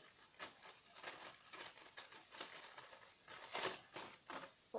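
Faint, irregular crinkling and rustling from hands handling squishy foam toys, with a louder crinkle about three and a half seconds in.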